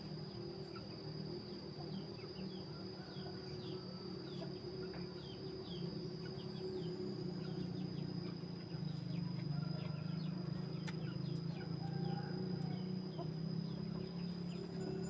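Oriental magpie-robin (black-breasted kacer) singing a run of short chirps and whistles over a steady low hum and a thin, steady high whine.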